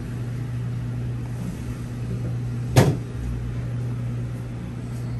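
A steady low machine hum, with one sharp knock a little past halfway.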